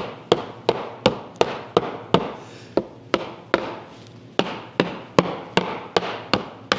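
Mallet tapping a 1966 International Scout 800 roll-up window assembly down into place: a steady run of sharp knocks, about three a second, with two short pauses.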